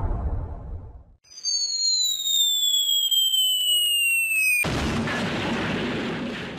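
Cartoon explosion sound effects. The rumble of one blast dies away in the first second. Then a high whistle falls in pitch for about three seconds, and a second explosion hits suddenly and fades.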